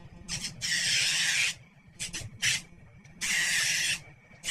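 Electric nail grinder sanding down a dog's nails in a series of passes: two hissing grinds of about a second each, with shorter touches between them, over a faint steady motor hum.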